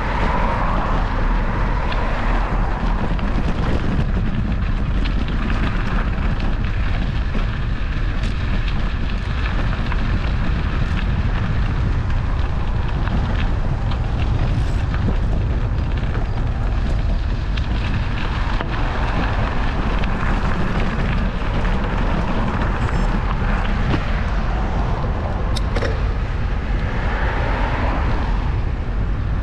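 Steady wind buffeting the microphone, mixed with road noise, while moving along a road, with swells of louder rushing about a second in, around two-thirds through and near the end.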